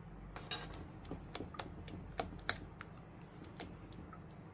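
Metal spoon clinking against a stainless steel mixing bowl while stirring thick pumpkin cake batter by hand: irregular sharp clicks, a few a second.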